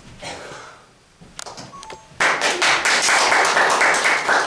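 Audience applauding: a few scattered claps, then loud dense clapping starting about two seconds in, which stops abruptly near the end.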